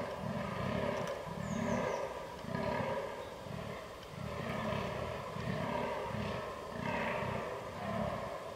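Fallow deer buck groaning in the rut: deep, short grunts repeated over and over in a steady rhythm.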